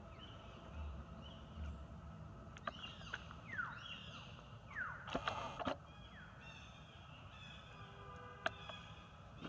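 Newborn macaque squeaking and whimpering at its mother's chest: several short, high squeaks that fall in pitch, with a few longer thin whines near the end.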